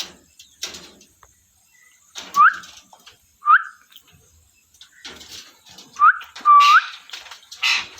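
A parrot giving short whistled chirps, each a quick upward slide in pitch: two spaced apart, then a close pair about six seconds in, with brief scraping noises between them.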